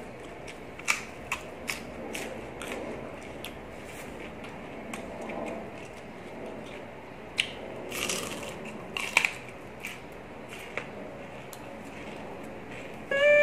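Close-up mouth sounds of chewing crisp raw vegetables and salad, with sharp crunches and clicks scattered through. Near the end, a loud run of tones falling in pitch cuts in.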